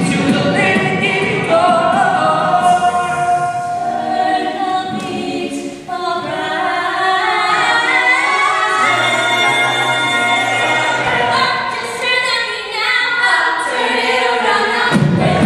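Mixed-voice a cappella group singing in harmony, voices only, holding long chords, with a brief dip in the sound about six seconds in.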